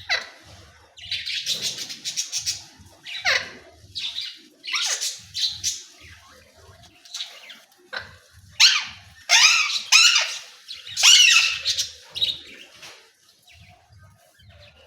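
Pet parrot calling: a rapid run of short, harsh squawks and chattering calls, some falling in pitch, loudest in a cluster about two-thirds of the way through.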